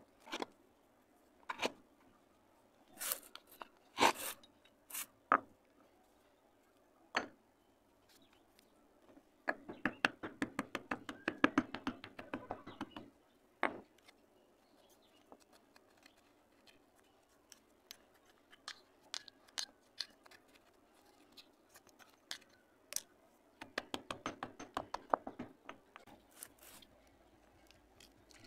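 Dry clay (multani mitti) being crumbled by hand, with a dense run of quick crackles about ten seconds in and another near the end. Before that come a few separate sharp clicks and knocks.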